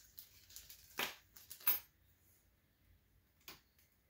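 Small clear plastic parts bag crinkling and rustling in the hands, with two sharper crackles about one and about two seconds in. Then a single light click.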